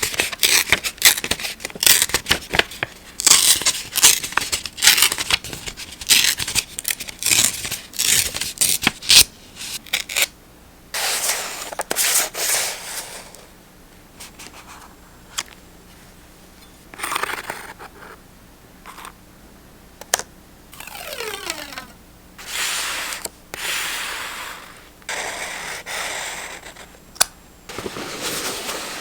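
Paper being handled for journaling. For the first nine seconds or so there is a fast run of sharp crinkling and snipping clicks. Then come several separate longer swishes of paper being rubbed, torn or peeled, with short pauses between them.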